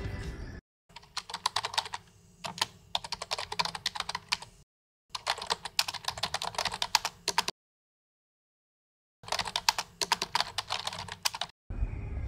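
Rapid key clicks of typing, in four quick runs broken by short silences, as words are typed out letter by letter.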